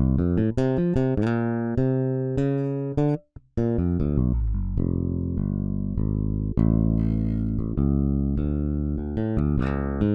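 Sampled electric bass from the EZbass virtual instrument playing a gospel MIDI groove. It plays a run of short plucked notes, breaks off briefly about three seconds in, then continues with longer held notes.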